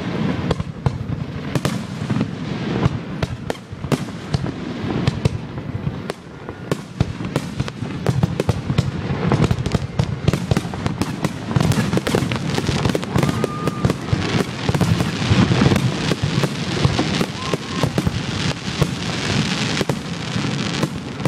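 Aerial fireworks shells bursting, many sharp bangs in quick, overlapping succession.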